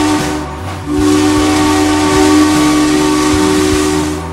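Steam locomotive whistle blowing twice: one blast cuts off about half a second in, then a longer blast of several tones with a hiss of steam starts about a second in and holds for about three seconds.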